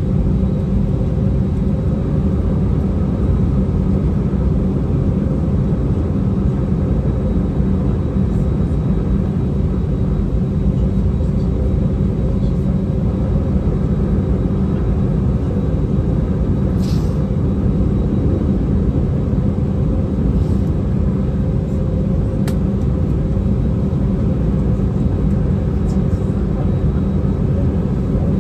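Steady jet engine and airflow noise heard inside the cabin of an Airbus A319: a heavy, even rumble with a few held hum tones and a couple of faint clicks.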